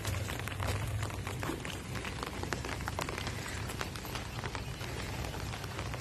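Rain pattering steadily, a dense even crackle of small drops, over a low steady rumble.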